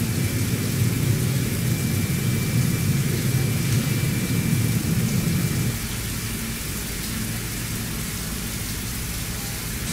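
CNC machine milling a steel crankshaft under flood coolant: a low, steady cutting noise mixed with a rain-like hiss of coolant spray, with a faint steady high whine. The low cutting noise drops off about six seconds in.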